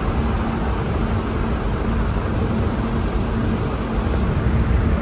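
Steady rumble and road noise of a motor vehicle in motion, heaviest in the low end, with a faint steady hum.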